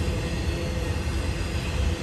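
Cars of an intermodal freight train rolling past, a steady low rumble of wheels on rail.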